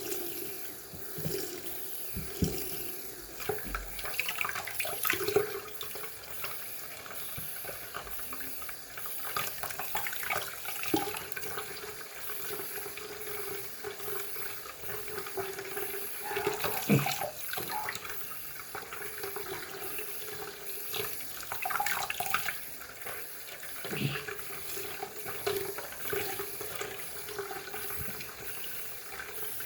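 Sink tap running, water splashing as squishy fidget toys are rinsed under it, with irregular short splashes and knocks.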